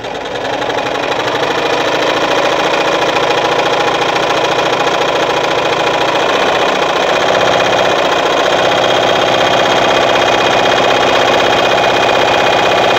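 Victoria Nuzstitch ZZ-570 front-oscillating-shuttle sewing machine sewing a short-length zigzag stitch at speed: a steady rapid mechanical clatter that builds over the first couple of seconds and then holds.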